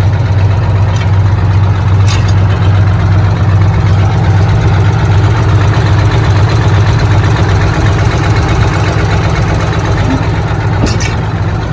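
Brigadier dump truck's diesel engine running steadily, a loud low drone, with a few faint clicks.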